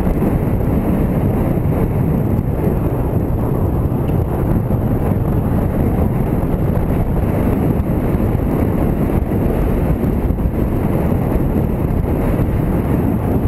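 Steady rush of wind buffeting the microphone of a camera on a moving motorcycle, with the motorcycle's engine and road noise underneath.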